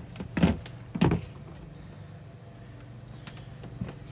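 Two short knocks, about half a second and a second in, from test leads and a multimeter being handled against a plastic toilet housing, then a couple of faint ticks near the end, over a steady low hum.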